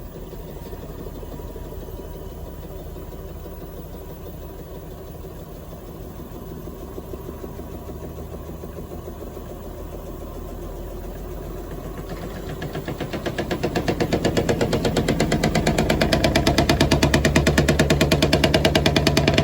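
Panasonic drum-type washing machine in its spin cycle, the drum speeding up; about two-thirds of the way through a rapid rhythmic rattling and banging sets in and grows louder. It is the abnormal noise this loaded machine makes at high spin speed, which the repairer found did not come from the motor.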